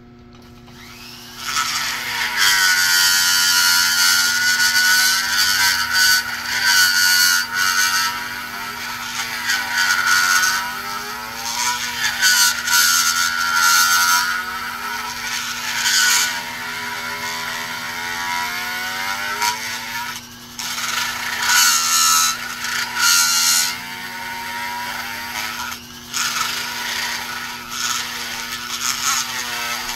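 High-speed pencil die grinder with a small burr grinding aluminum filler poured into the EGR passages of an Oldsmobile 350 cast-iron cylinder head. It starts about a second and a half in, and its whine sags and recovers in pitch again and again as the burr bites and eases off. It cuts out briefly twice in the second half, over a steady low hum.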